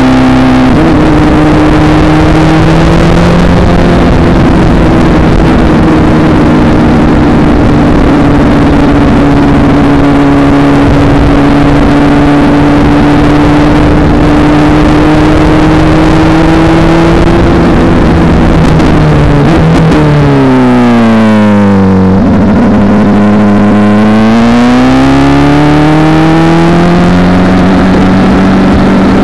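BMW S1000RR inline-four engine running with its muffler removed, very loud, holding a steady pitch while the bike cruises. About twenty seconds in the revs fall away as the bike slows, then climb again as it pulls away.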